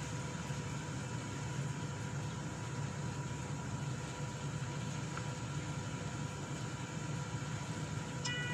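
Steady machine hum with a faint constant whine. Short high electronic beeps start near the end.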